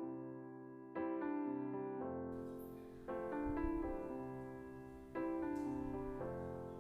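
Soft background piano music: sustained chords struck about every two seconds, each fading before the next.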